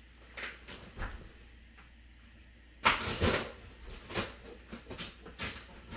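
A cardboard box being cut open with a box opener: a few light scrapes, then a loud burst of tearing and scraping about three seconds in, followed by shorter rips.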